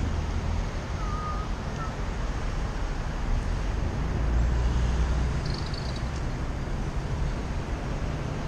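City street traffic heard from a bicycle: car engines idling and moving slowly past at close range, with a low rumble that swells about halfway through and wind buffeting the microphone. A faint short whistle sounds about a second in.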